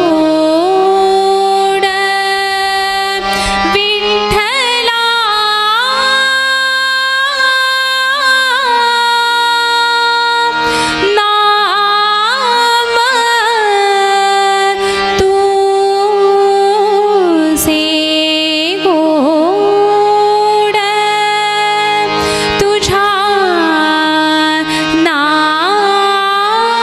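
Devotional bhajan music: a long wordless melodic passage of held notes that glide and waver between pitches, over a lower drone that steps between notes. A few sharp drum strokes fall through it.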